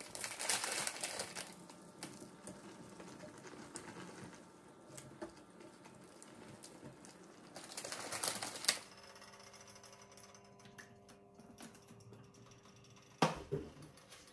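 Water coming to the boil in a stainless steel pot of instant ramen noodle blocks: a dense, rapid crackle of small bubbles popping, louder near the start and again around eight seconds. It cuts off suddenly, leaving a faint steady hum with one sharp knock near the end.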